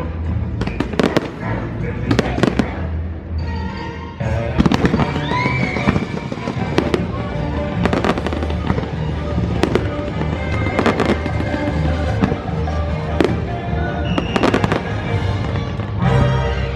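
Fireworks bursting in quick, irregular bangs over the fireworks show's music soundtrack, with a short whistling glide that rises and falls about five seconds in.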